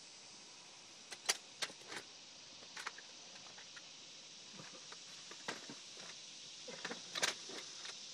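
Small metal items jingling and clicking close to the microphone, in a few short clusters: about a second in, near three seconds, and the loudest near seven seconds, over a steady high hiss.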